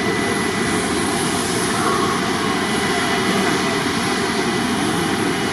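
Jet airliner engines running, a loud, steady rumble and roar with a faint high whine.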